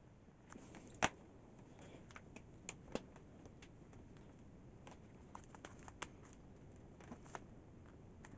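Quiet scattered clicks and taps from handling a soldering iron, wire and pliers on a cardboard-covered desk, with a sharp click about a second in and another about three seconds in.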